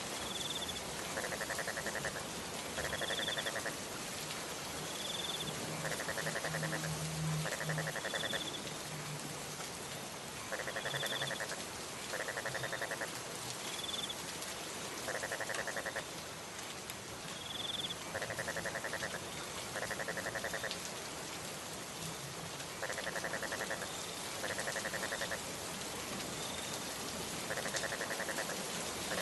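Steady rain, with a frog calling in rattling trills about a second long, mostly in pairs every few seconds. A short high chirp repeats every couple of seconds.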